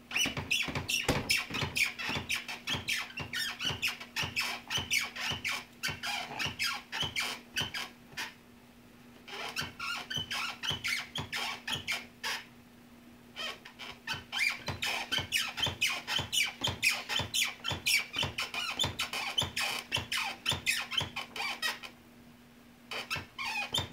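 Office desk chair squeaking over and over in a quick rhythm, about three squeaks a second, as a baby moves on it, with a few short pauses.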